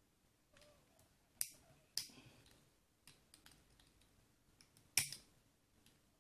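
Small metal clicks and ticks of a C-clip remover tool working at the retaining C-clip on the back of a lock cylinder. There are three sharper clicks, the loudest near the end, with lighter ticks between them.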